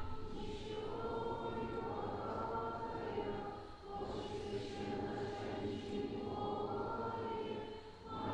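A church congregation quietly singing an Orthodox liturgical chant together, unaccompanied. Long held phrases, with short breaks about four seconds in and near the end.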